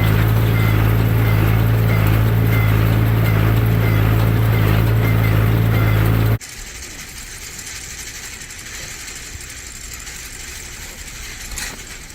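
Tractor running with a small square baler: a steady engine drone with faint, regularly repeating higher marks. It cuts off abruptly about six seconds in, leaving a quiet outdoor background.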